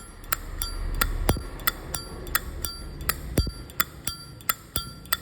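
Brass Zippo lighter being handled, its hinged metal lid clicking and clinking in a quick, irregular series of sharp clicks, about three a second, each with a brief metallic ring.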